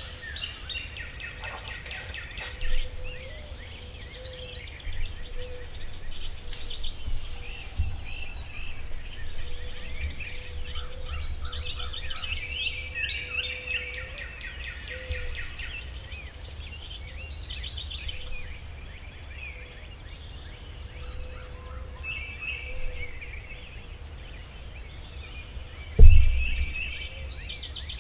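Wild birds chirping and calling over a steady low outdoor rumble. Near the end comes one sudden loud low thump, the loudest sound here.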